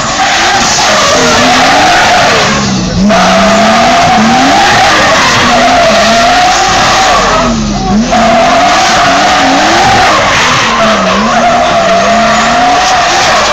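Drift car doing donuts: tyres squealing steadily while the engine revs rise and fall over and over. Around three and eight seconds in the throttle briefly lifts, the revs drop and the squeal cuts out for a moment before it picks up again.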